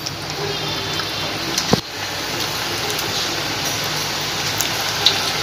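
Hot oil in a steel kadai sizzling steadily as handfuls of onion bhaji batter are dropped in to deep-fry. One sharp click a little under two seconds in.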